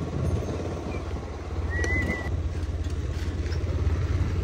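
Wind buffeting the microphone of a camera moving along at riding speed: a steady low rumble. A brief high chirp comes about two seconds in.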